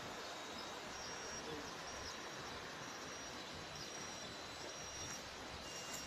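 Steady outdoor background noise, with a faint high-pitched chirp repeating about once a second.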